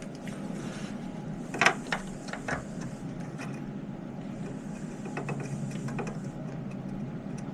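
A few light clicks and taps from RAM modules being handled and fitted into a Dell desktop's memory slots, a cluster of them between about one and a half and two and a half seconds in and fainter ones later, over a steady low hum.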